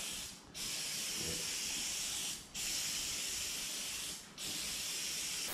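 Aerosol can of Spray Fix high-strength contact adhesive spraying in a steady hiss, let off in four long squirts with three brief breaks.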